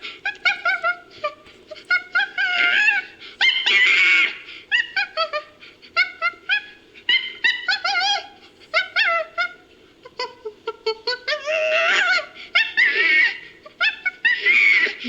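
Designed 'dire chimpanzee' creature vocalisation made from layered chimpanzee calls: rapid strings of short pitched hoots and squeals, several a second, broken by longer, louder screams about three to four seconds in and again near the end.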